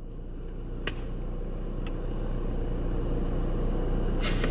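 Vehicle engine running with a steady low hum that grows gradually louder, with a faint click about a second in.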